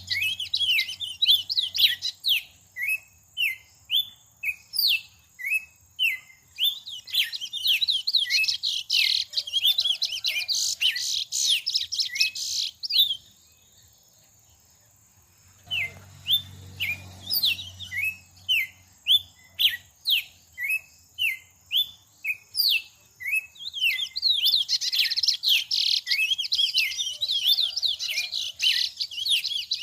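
A songbird singing: a series of sharp, downward-sweeping whistled notes, roughly two a second, mixed with rapid high twittering. The song stops about 13 seconds in, leaving near silence for nearly three seconds, then starts again.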